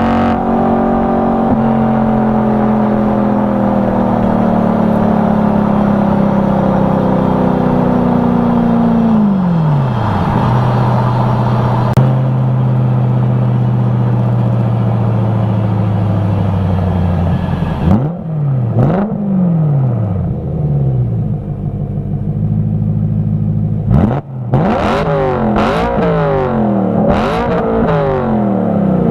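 BMW E92 M3's V8 exhaust, heard up close: a steady engine note that slowly eases down, drops to a lower steady pitch about a third of the way in, then from about two-thirds in turns into a run of quick revs rising and falling several times in a row.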